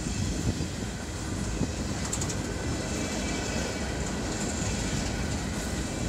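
Empty coal hopper cars of a long freight train rolling past close by: a steady rumble of steel wheels on the rails that does not let up.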